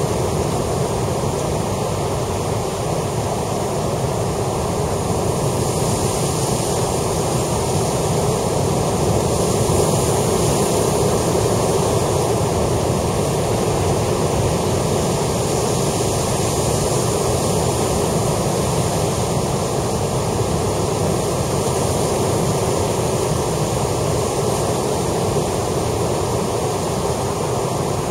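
Sea surf breaking and washing over shore rocks: a steady rush of waves.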